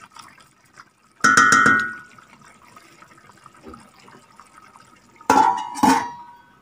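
A ringing metallic knock on the stainless steel pot about a second in. Near the end a glass lid is set down on the pot with two clanks that ring on briefly. Under them is the faint bubbling of the simmering stew.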